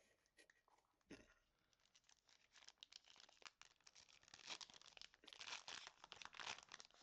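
Foil Pokémon booster pack wrapper crinkling and being torn open: a knock about a second in, then a dense run of crackles that builds and is loudest in the last few seconds.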